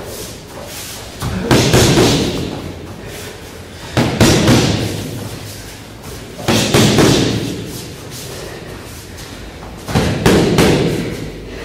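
Gloved punches smacking into focus mitts in one-two pairs (jab then punch), four pairs a few seconds apart, each pair followed by a long echo in a large hall.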